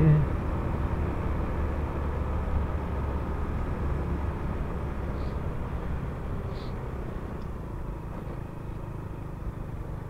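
Single-cylinder four-stroke engine of a Honda Supra X125 FI motorcycle running steadily under way, a low even drone that eases slightly in level toward the end.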